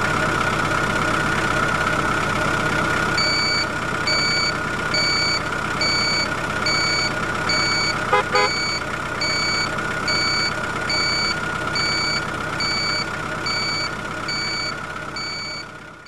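Truck engine idling steadily, with a reversing alarm beeping a little faster than once a second from about three seconds in, signalling that the vehicle is backing up. The sound cuts off suddenly at the end.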